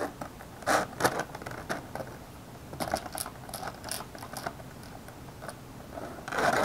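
Thin clear plastic blister tray crackling and clicking as small parts are picked out of it with a screwdriver tip: scattered short clicks and crinkles, busier near the end.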